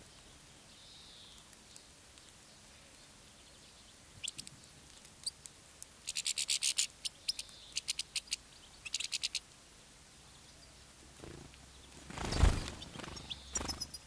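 European goldfinches twittering in quick runs of short, high chirps from about four to nine seconds in. About twelve seconds in comes a brief, loud low thump.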